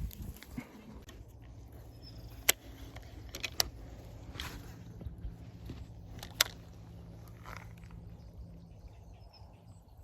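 Outdoor background with a steady low hum, broken by four sharp clicks.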